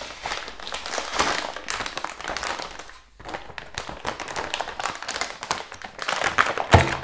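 Graphics card's silver anti-static plastic bag being unsealed and opened out by hand, crinkling and crackling in irregular bursts, with a short pause about three seconds in.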